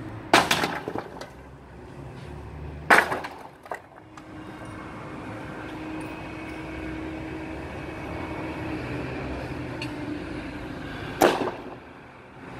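Old roofing debris thrown down from a roof under repair, crashing onto the ground below: three loud crashes with clattering, two about three seconds apart and a third near the end, over a steady low hum of city background.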